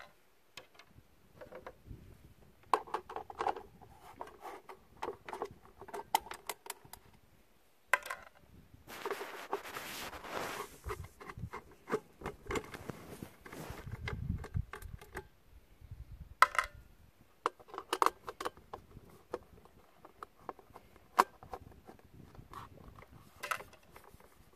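Small handling sounds of a bread maker being taken apart with a screwdriver: scattered sharp clicks and taps of the tool and small screws against the plastic case, with a stretch of scraping about nine seconds in.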